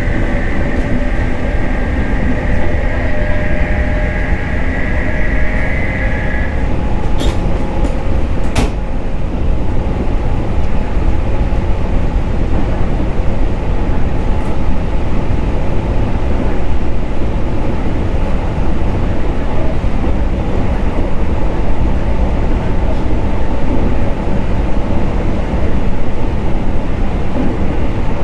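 JR 719 series 5000 electric multiple unit in motion, heard from inside the car: a steady rumble of wheels and running gear on the rails. A high whine stops about six seconds in, and two sharp clicks follow a second or two later.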